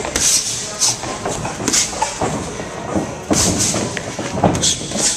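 Boxers sparring: irregular flurries of gloved punches landing on gloves and padded headgear, each a sharp smack, with short hissing bursts among them.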